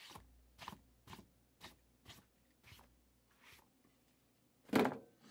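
Packaging of a sealed case of trading cards being handled and opened: a run of short scraping, crinkling sounds about two a second, with one louder one near the end.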